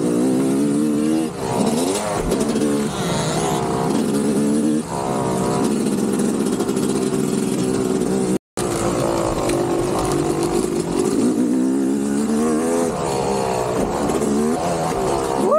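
Motocross dirt bike engine revving up and down over and over, its pitch climbing and dropping with throttle and gear changes. The sound cuts out for a moment a little past halfway.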